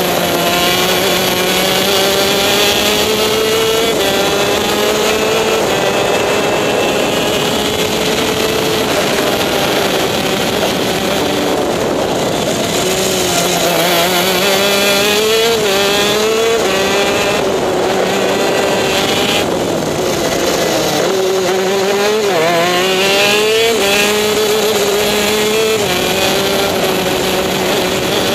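TM K9C 125 cc two-stroke shifter kart engine at racing speed, heard from the kart itself. Its note dips in the slow corners and climbs again in quick steps as it is shifted up through its six-speed gearbox, most clearly a little before halfway and again about three quarters of the way through.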